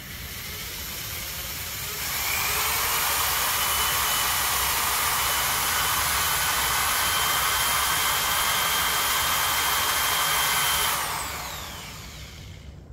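Power drill spinning a hard plastic threaded part on a bolt while a strip of coarse sandpaper is held against the threads to grind them down. The motor whine climbs to full speed about two seconds in and holds steady under a sanding hiss, then winds down near the end.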